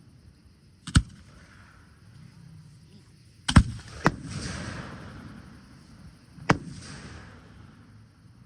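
Aerial fireworks bursting: four sharp bangs, one about a second in, two close together near the middle and one about two-thirds through. The later bursts are followed by a fizzing crackle.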